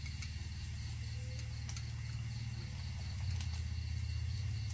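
A steady low hum, with a few faint clicks of utensils against the grill pan and a thin, steady insect trill.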